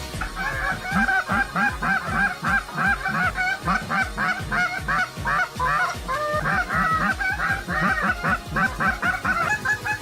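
A flock of geese honking, many calls overlapping, over a low regular pulse that quickens in the second half.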